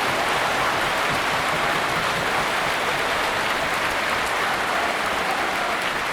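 Large football stadium crowd, a steady dense roar of many voices and clapping blended together.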